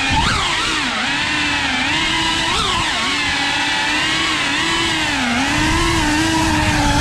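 FPV racing quadcopter's brushless motors and propellers whining, the pitch dipping and surging with the throttle, with quick upward blips about a third of a second and two and a half seconds in. A low rush of air noise runs beneath it.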